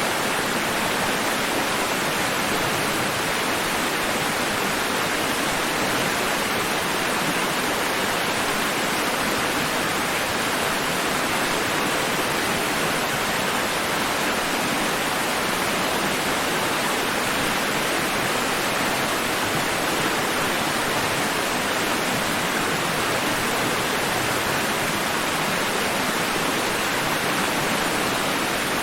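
Steady rushing water noise, even and unbroken, with no rise and fall of separate waves.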